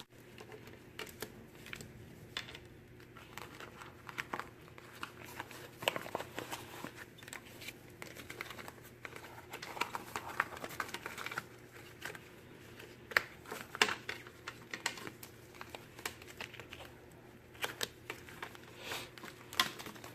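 Packaging and paper handled by hand: irregular crinkling and rustling with many small clicks and taps as a planner is unwrapped and moved about.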